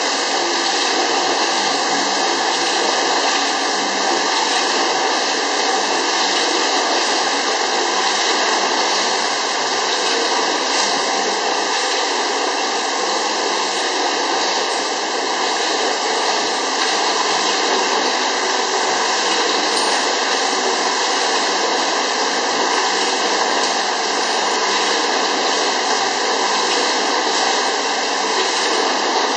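Automatic turntable filling and capping machine running, a steady even machine noise without a clear beat.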